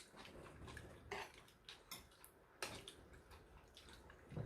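A few faint clinks of cutlery against dishes, spaced out over a few seconds.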